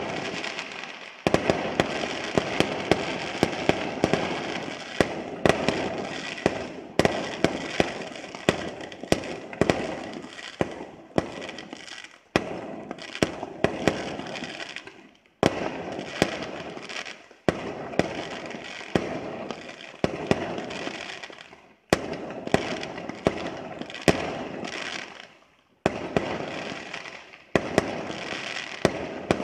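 Fireworks display: a dense run of sharp bangs, several a second, over a continuous crackle of bursting shells. It comes in volleys that break off abruptly and start again several times.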